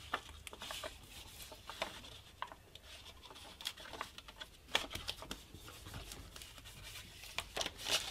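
Paper pattern rustling and small wooden pieces tapping and sliding on a wooden workbench as they are handled, with scattered light clicks.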